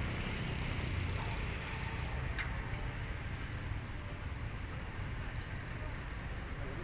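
Low, steady rumble of a passenger train rolling past, easing slightly, with one sharp click about two and a half seconds in.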